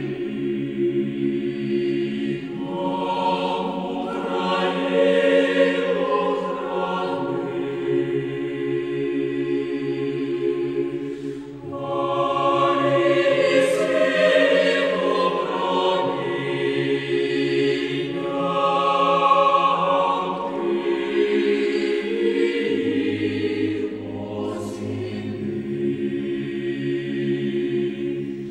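A choir singing slow, sustained chords, with a low bass line that moves every few seconds and a short breath about twelve seconds in.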